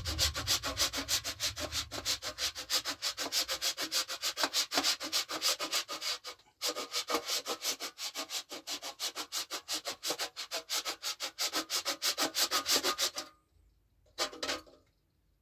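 Candle wax grated on the finest side of a metal box grater: a fast, even run of rasping strokes, several a second. It breaks off briefly about six seconds in, stops near the end, and comes back once in a short burst.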